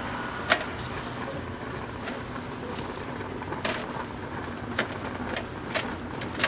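Cooking utensils at a street-food stall giving a few sharp clicks and clinks, the loudest about half a second in, over a steady background hum.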